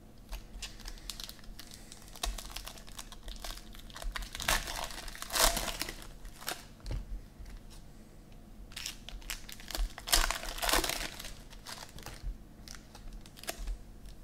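Foil wrappers of Panini Prizm football card packs crinkling as packs are handled and torn open, with two louder spells of crackling about five seconds and ten seconds in.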